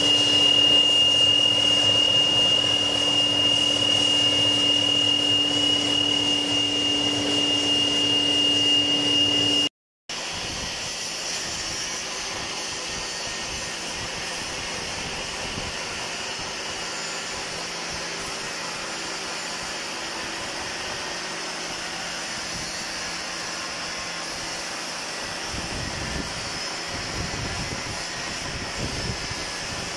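Centre lathe turning a metal worm shaft with coolant flowing: the cut gives a loud, steady high-pitched whine for about ten seconds. It breaks off suddenly, and then the lathe runs on with a quieter, even hum.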